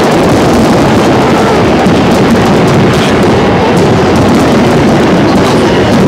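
Large aerial fireworks display: a loud, unbroken barrage of shell bursts and crackling that blurs into one continuous rumble.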